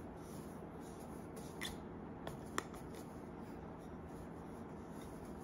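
Faint handling sounds of a metal broom-handle pole being twisted into a plastic socket, with a few small clicks about two seconds in, over low room tone.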